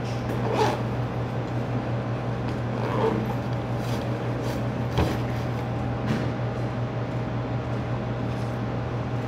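Window air conditioner running with a steady hum and hiss, with a few soft knocks and rustles as the phone is handled.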